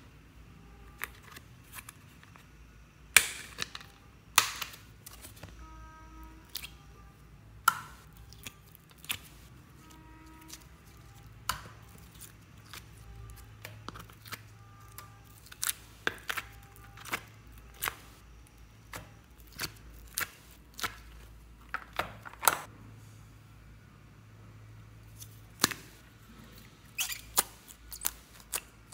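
Hard plastic slime containers handled and opened: irregular sharp clicks, snaps and taps of the plastic, a few of them loud, as the slime is worked out of the tub and pushed out of a small cup.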